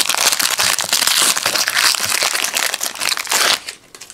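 Foil trading-card pack wrapper crinkling loudly as it is torn open and crumpled by hand, stopping suddenly about three and a half seconds in, followed by a few faint clicks.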